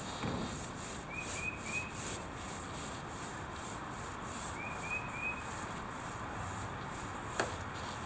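Outdoor rural ambience: a bird's short chirps in quick groups of three, twice, over an insect's steady high pulsing about three times a second. A single sharp knock comes near the end.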